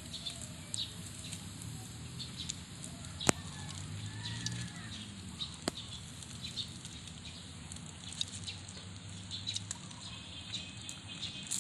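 Wood fire crackling under an empty wok, with scattered small pops and a sharper snap about three seconds in, over a low steady rumble.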